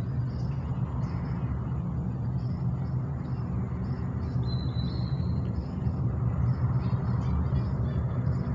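Distant C-17 Globemaster III's four turbofan engines after takeoff: a steady low rumble that swells slightly a little past halfway. Short high chirps sound faintly over it.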